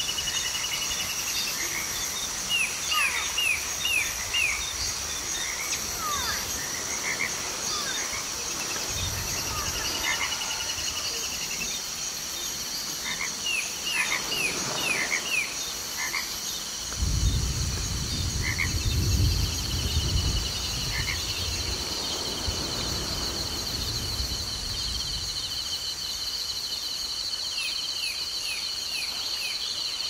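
Tropical rainforest ambience: a steady high insect drone under clusters of short, falling chirps from frogs. A low rumble swells in about halfway through and fades a few seconds later.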